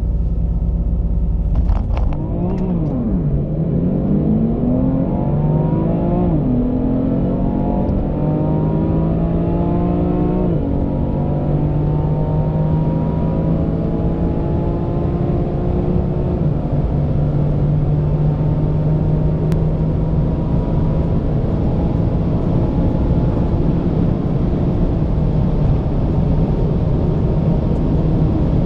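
High-performance car engine at full throttle, heard from inside the cabin: held at revs, it launches about two seconds in, then climbs in pitch and drops back at each of about five upshifts, each gear taking longer as speed builds.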